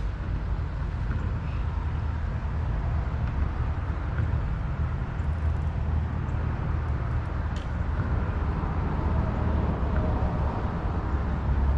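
Steady low rumble of a vehicle driving, with road noise.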